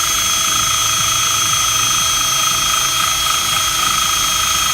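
Power drill running at steady full speed, a continuous high whine, while drilling mounting holes for side splitters.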